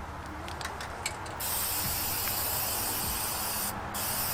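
Aerosol can of Fluid Film rust-inhibitor spraying in a long hissing burst, then a short break and another burst near the end, with a few light clicks before the first burst.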